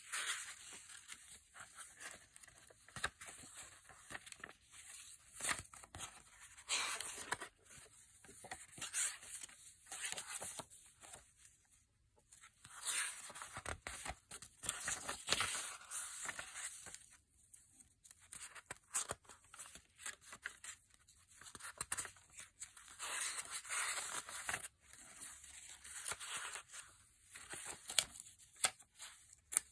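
Paper pages of an altered Reader's Digest junk journal being turned by hand: dry rustling and flapping in irregular bursts, with a couple of short pauses.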